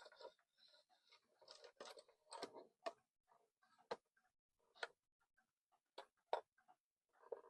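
Faint handling noises from work on a cuckoo clock's parts: soft rustles and scrapes with several sharp, irregular small clicks.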